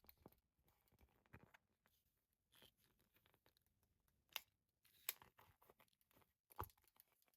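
Faint scraping and handling of a rubber RC crawler tire as a vent hole is punched through it, with a few sharp clicks in the second half.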